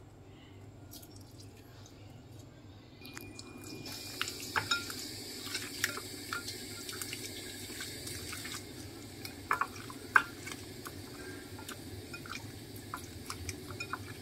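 Raw chicken pieces being mixed by hand with marinade in a glass bowl: wet squelching with many small clicks and taps against the glass, starting about four seconds in after a quieter start.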